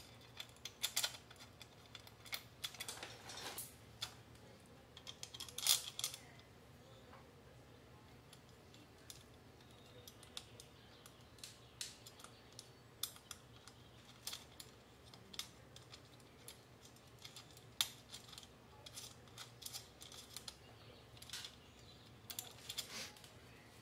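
Irregular light clicks and taps of hand tools and metal parts being handled while an aluminium radiator guard bracket is fitted to a dirt bike and its bolt is started, with a few sharper clicks now and then.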